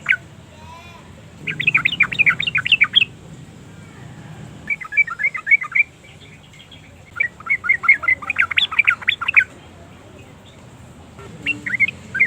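Yellow-vented bulbul singing: four bursts of rapid, bubbly chattering notes, each one to two seconds long, with short pauses between.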